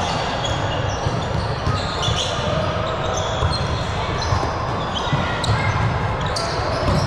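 Indoor court game: a ball thumping and bouncing, with short high squeaks and players' voices in the background.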